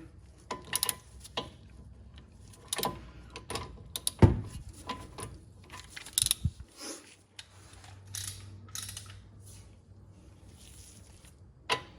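Scattered metallic clicks and clinks of a ratchet-head torque wrench and socket being worked onto a brake caliper bracket bolt in a tight space, with one sharper knock about four seconds in.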